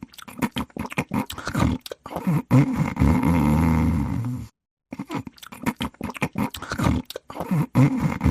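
Cat snoring, two breaths. Each is a stretch of irregular, rattling flutters followed by a drawn-out low, throaty snore of about two seconds. A brief gap of dead silence falls between the two breaths, about halfway through.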